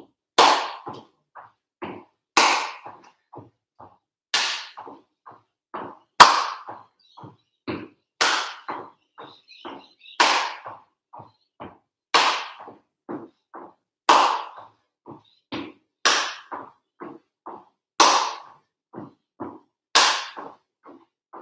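Rhythmic side-stepping in shoes on a wooden floor: quiet knocks of the steps, with a loud, sharp smack about every two seconds that rings briefly in the room.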